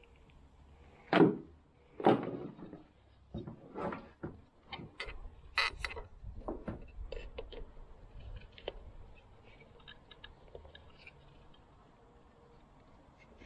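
A run of knocks and clicks from objects being handled: two loud knocks about a second and two seconds in, then lighter clattering that thins out after about nine seconds.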